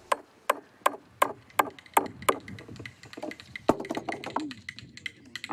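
Hammer blows on the wooden frame of a Red River cart: seven sharp, even strikes at about three a second, then lighter, irregular taps and one more hard knock about halfway through.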